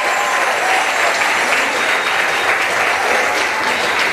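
An audience applauding: a dense, steady clapping of many hands.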